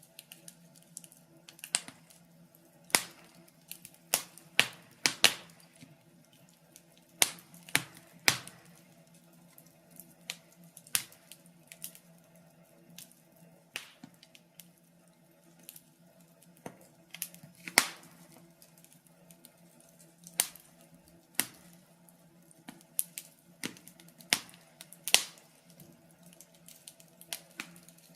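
Wood fire crackling in a fireplace: irregular sharp pops and snaps, roughly one a second, some louder than others, over a faint steady hum.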